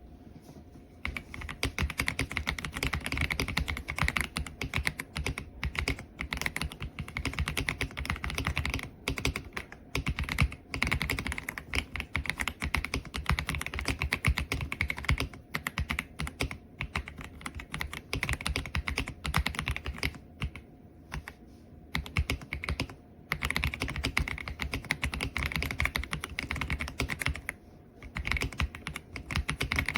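Steady typing on the EPOMAKER x Aula F75 gasket-mount mechanical keyboard with Ice Vein switches: a fast, dense run of key clacks starting about a second in, broken by a few short pauses.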